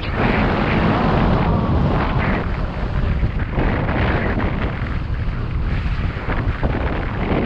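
Wind buffeting the microphone of a camera riding on a moving bicycle: a loud, rushing rumble that swells and dips.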